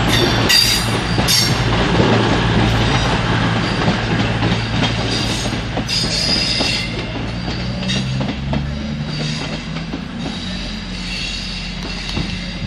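Train moving slowly through the station: a steady low drone with wheel flange squeal coming and going, gradually fading.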